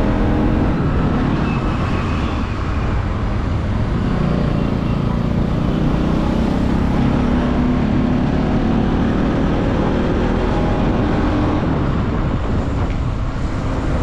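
Steady vehicle engine and road noise heard from a vehicle moving through city traffic.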